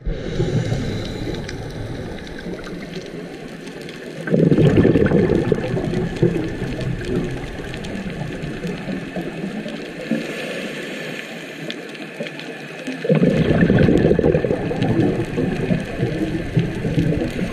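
Scuba diver breathing on a regulator underwater: exhaled bubbles burbling loudly twice, about four seconds in and again about thirteen seconds in, with a quieter watery hiss between the breaths.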